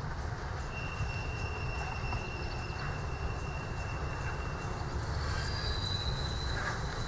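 Steam-hauled passenger train rolling past with a steady low rumble. A thin, high-pitched wheel squeal holds for about four seconds, and a second, higher squeal starts near the end.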